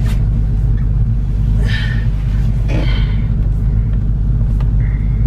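Car engine idling with a steady low rumble, heard from inside the Ford Mustang's cabin. A couple of brief rustles come about two and three seconds in.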